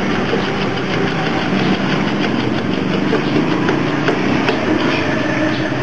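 A steady, engine-like machine hum. Over it are light, repeated clicks from the ratchet handle of a seam setter being pumped to draw two granite slabs together.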